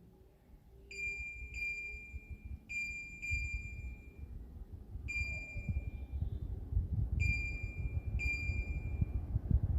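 Ceiling fan's control unit giving short, high electronic beeps, seven in all and some in quick pairs, the kind of acknowledgement beep such a fan gives for each remote-control button press. Under them is a low rumble that grows louder.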